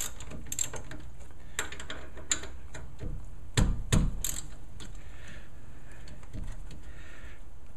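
Ratchet wrench clicking and metal tools knocking as the bolts on the back of a disc brake caliper are loosened: scattered sharp clicks and knocks in the first few seconds, then softer short runs of ratcheting.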